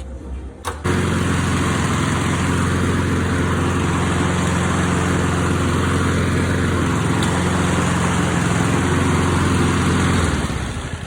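Snapper mower's Honda GXV single-cylinder engine running steadily. It comes in abruptly about a second in and dies away near the end.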